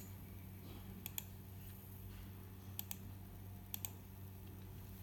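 Computer mouse clicking: three pairs of sharp clicks, over a steady low hum.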